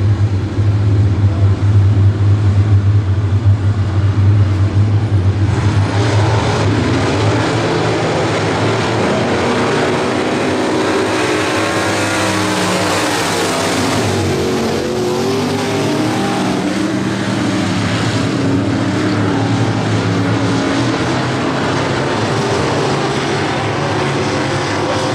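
A pack of dirt-track street stock race cars at racing speed, several engines running hard together and revving up and down in pitch through the turns.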